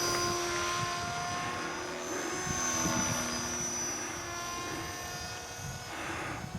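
Small electric model helicopter flying, its rotor blades and motor making a steady whine whose pitch drifts slightly as it manoeuvres.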